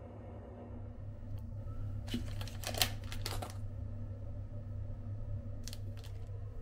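Cellophane wrapper of a toothbrush kit crinkling as it is handled, a run of crackles about two to three and a half seconds in, with a few more clicks near the end, over a steady low hum.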